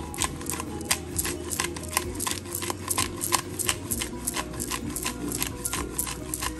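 Disposable black pepper grinder being twisted by hand, its ratcheting top clicking about three times a second as it grinds peppercorns.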